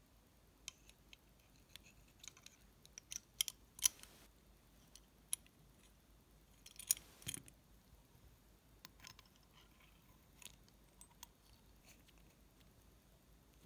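Light clicks and small metallic taps of polished brass blowtorch valve parts being handled and fitted onto a steel spindle, scattered and irregular, with a louder cluster a few seconds in and another about halfway through.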